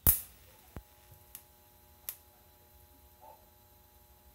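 TIG welder arc on sheet steel: a sharp crack right at the start, then a faint steady hum with a few light ticks as nut plates are fused to the panel.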